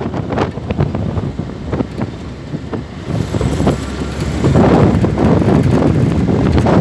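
Wind buffeting the microphone of a camera carried along a road in a moving vehicle, a loud rough rumble with the vehicle's road noise underneath. It gets louder about two-thirds of the way in.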